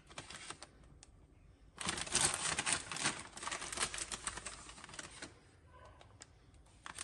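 Plastic bag crinkling and crackling as cornflour is tipped from it into a glass bowl of flour. The dense crackling starts about two seconds in and lasts a few seconds, with a short burst again at the end.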